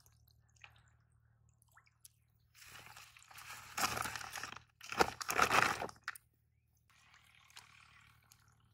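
White woven plastic sack rustling and crinkling as it is opened and a freshly caught fish is put in, in two loud bursts about three seconds long in all, the second the loudest.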